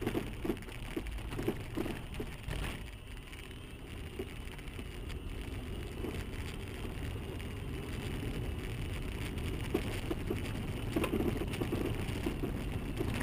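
Vehicle road noise: a steady low rumble with scattered knocks and a faint high whine, slowly growing louder.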